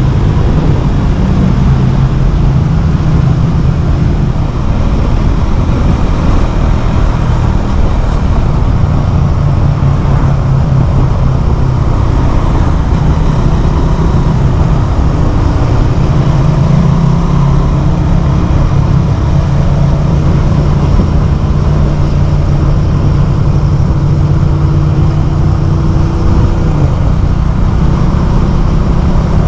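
Motorcycle fitted with a LeoVince LV One Evo carbon exhaust, its dB killer removed, running loud at a steady engine speed, with no revving.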